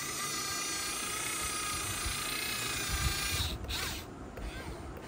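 Yigong RC excavator's small electric gear motors whining steadily as it crawls forward on its tracks. The whine stops about three and a half seconds in, followed by a few short, fainter bursts of motor whir.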